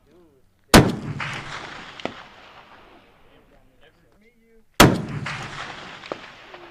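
Two shots from an M107 Barrett .50-calibre anti-materiel rifle, about four seconds apart, each a sharp crack followed by a long rolling echo that fades over a couple of seconds.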